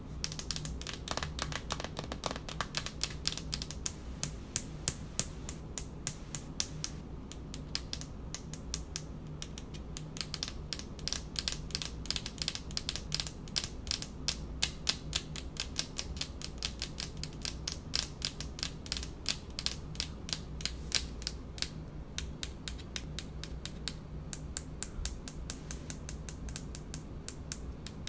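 Long fingernails tapping on a hard speckled countertop: rapid, irregular flurries of sharp clicks over a low steady hum.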